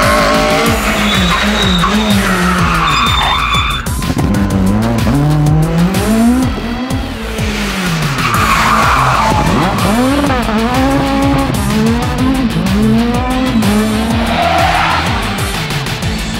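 Renault Mégane Maxi rally car driven flat out, its engine revs climbing and dropping sharply again and again with gear changes and lifts. Three bursts of tyre squeal come through the corners.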